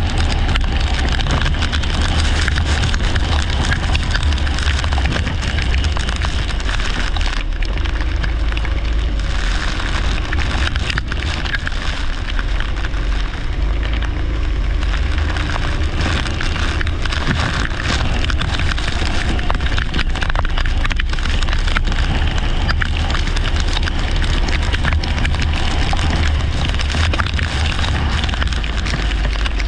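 A leisure kart racing on a wet track: its engine note rises and falls faintly under a loud, steady crackling noise and a strong low rumble, like wind and spray hitting the microphone.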